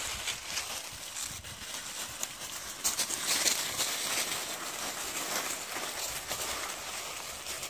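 Dry fallen leaves rustling and crunching as young Jindo dogs tussle and trample through the leaf litter, with a dense patch of crackling about three seconds in.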